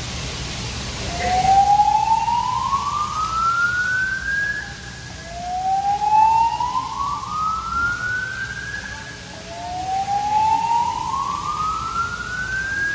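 Building fire alarm voice-evacuation speakers sounding the slow-whoop evacuation tone: three rising sweeps, each lasting a few seconds, cutting off at the top and starting again from low.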